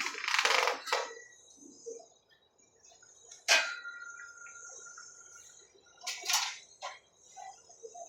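Scraping noises, then a single sharp metallic clank that rings on for about a second and a half, and a couple more short scrapes a little after six seconds in.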